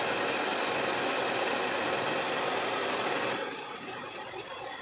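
Handheld hair dryer running with a steady rush of air and motor hum as it dries hair over a round brush; about three seconds in the sound drops to a quieter, duller blow.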